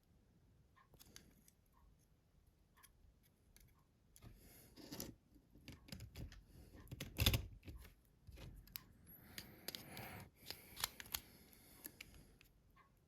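Small plastic mobile-phone parts handled on a workbench: scattered clicks, taps and scraping, with one sharp knock about seven seconds in and a quick run of clicks a little later.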